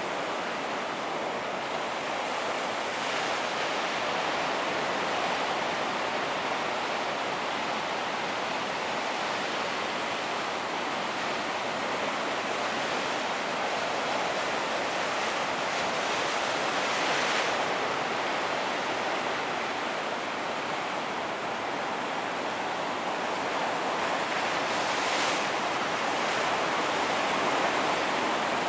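Ocean surf washing onto a beach: a steady rushing noise that swells slightly louder a couple of times, about halfway through and again near the end.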